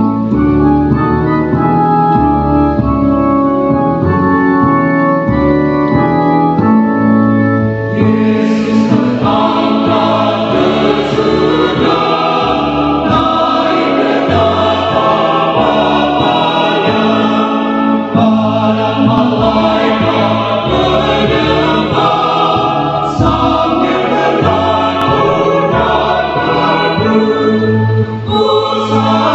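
Organ playing an introduction in held chords, then about eight seconds in a mixed choir enters, singing an Indonesian hymn in parts over the organ accompaniment.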